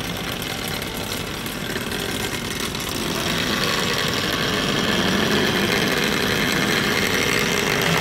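Industrial sewing machine running, stitching through the thick felt hem of a filter bag, growing louder from about three seconds in.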